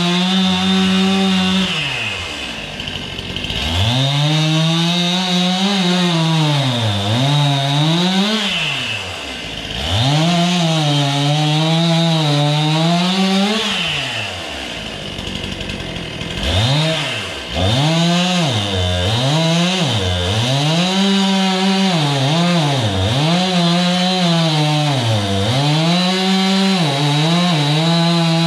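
Chainsaw revved to full throttle and cutting wood, its pitch sagging and recovering as the chain bites. It drops back to idle briefly three times.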